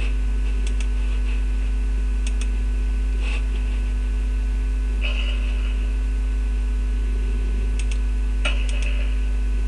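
Loud, steady, low electrical mains hum on the recording, with a few faint clicks and soft noises over it.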